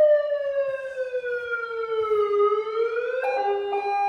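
Electronic siren through a vehicle-mounted PA horn speaker (Ahuja SUH-25M, 25 W). It wails in a slow falling-then-rising glide, then about three seconds in switches abruptly to a steady, rapidly pulsing tone as the amplifier is stepped to its next siren setting.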